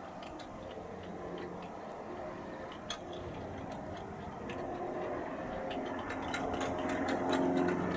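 Light aircraft engine and propeller, a Cessna 172S's four-cylinder Lycoming, droning as the plane goes around. It grows steadily louder from about halfway through. Faint ticks are scattered throughout.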